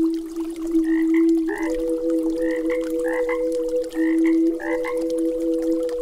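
Frogs croaking: a run of short calls, often in quick pairs, from about a second in to about five seconds in. They sound over two steady held tones from the meditation drone, the higher one joining a little under two seconds in.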